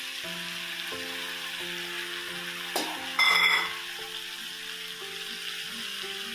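Frying Malabar spinach and small dried fish sizzling in a kadhai as ground tomato is added. About three seconds in, a short, loud metallic clank with a ringing tone.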